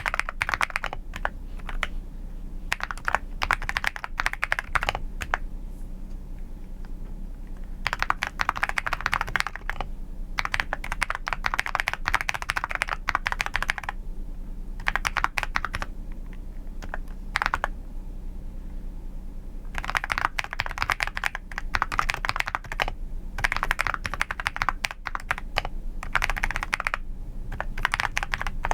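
Computer keyboard typing in fast runs of one to four seconds with short pauses between, the keys making a clacking 'kotokoto' sound.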